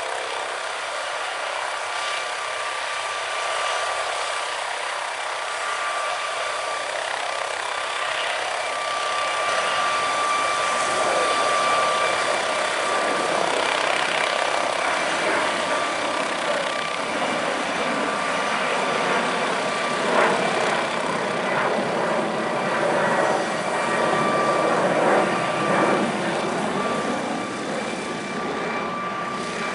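MD 902 Explorer twin-turbine helicopter running on the ground, its turbines giving a steady high whine over a rushing noise that grows louder from about ten seconds in.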